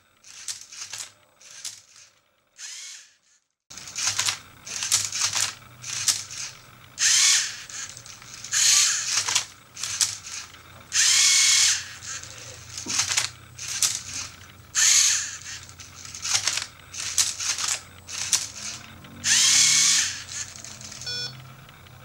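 Lego Mindstorms NXT servo motors whirring in short repeated bursts, one after another with brief pauses, as the robot turns and flips a Rubik's Cube through its solving moves. The motors start about four seconds in, after a nearly quiet start.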